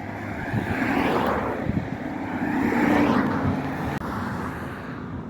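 Road traffic: motor vehicles passing close by, the sound swelling and fading twice, once about a second in and again about three seconds in.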